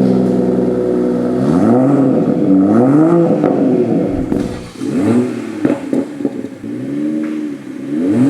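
Toyota Supra A90's B58 3.0-litre inline-six, fitted with an AWE resonated Touring Edition exhaust, settling at idle and then blipped in about four short free revs that rise and fall. A few sharp pops come between the revs near the middle.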